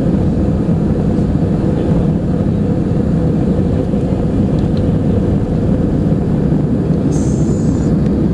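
Airbus A320-family airliner accelerating down the runway on its takeoff roll, heard from inside the cabin: the jet engines at takeoff power and the runway rumble make one steady, loud, deep noise. A short high-pitched tone sounds about seven seconds in.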